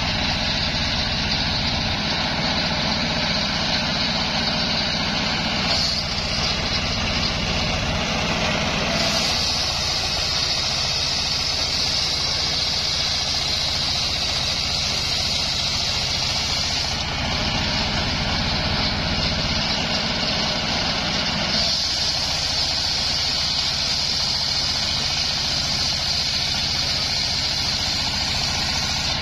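Homemade engine-driven circular sawmill running steadily while its blade rips lengthwise through a coconut palm log. A high, hissing cutting noise over the engine's hum grows louder in long stretches as the log is pushed through.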